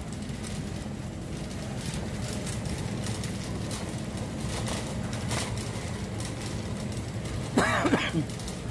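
Metal wire shopping cart rolling over a concrete floor: a steady low rumble with light rattling clicks. Near the end, a short, loud squeal that bends up and down in pitch.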